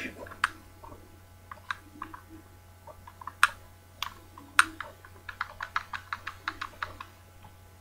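Light clicks and taps from a plastic airsoft Glock-replica pistol being handled: a few scattered single clicks, then a quick run of a dozen or so in the second half.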